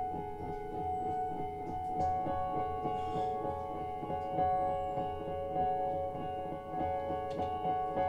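Stage keyboard played live in a solo improvisation: held chord tones over a busy, fast patter of repeated notes, with a higher note joining about two seconds in.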